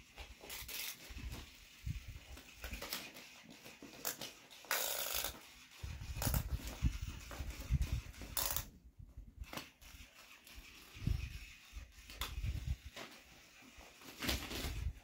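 A small dog playing rough with a plush toy on a ribbon: scuffling and rustling as it tugs and shakes the toy, with scattered low thumps and a longer rustle about five seconds in.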